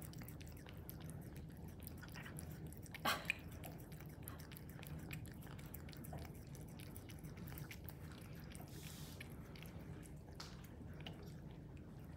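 Cat licking a lickable cream treat from a squeeze tube: small, soft, wet tongue clicks and smacks, over a low steady hum. A brief louder sound stands out about three seconds in.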